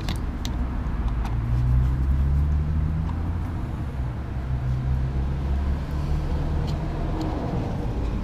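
Low, steady engine rumble with a hum that swells and fades, like a motor vehicle running nearby. A few light clicks sound near the start and again about seven seconds in.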